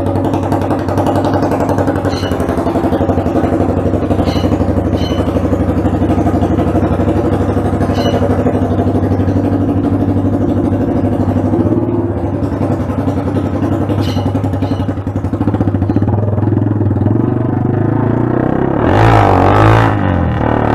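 Motorcycle engine running through a bare exhaust pipe with the muffler tip removed, loud and raw as it is ridden. The engine note holds fairly steady, shifts in pitch around the middle, and grows louder and rougher near the end.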